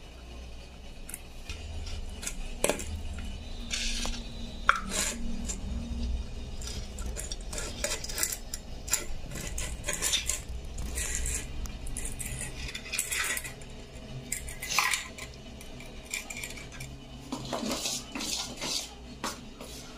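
A metal utensil scraping and clinking against a stainless-steel idli-stand plate as steamed rice cakes are prised out of its cups. The scrapes and clinks come irregularly, with a busier stretch near the end.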